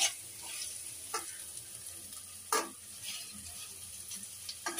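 Sliced onions sizzling in hot oil in a pan with a steady hiss, being fried to reddish-brown beresta. A spatula scrapes through them against the pan a few times.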